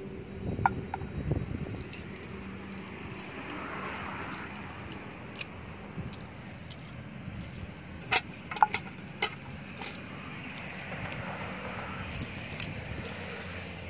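Cast net being handled as small fish are picked out of it: the mesh rustles and its lead sinkers clink, with a cluster of sharp clicks about eight to nine seconds in.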